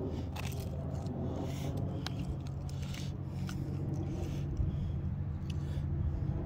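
A steady low hum, with scattered light rustles and clicks of footsteps through dry grass.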